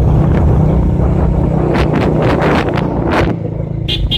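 Vehicle engine running steadily under way, with heavy wind buffeting the microphone. Several louder wind gusts come in the middle, and the engine note drops back near the end.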